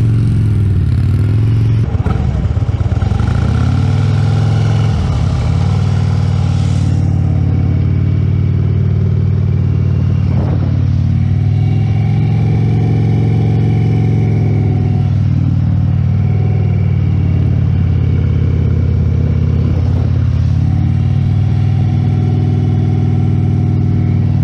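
Large touring motorcycle's engine running at low revs through slow, tight figure-eight turns. Its pitch dips and rises gently a few times as the throttle is eased on and off.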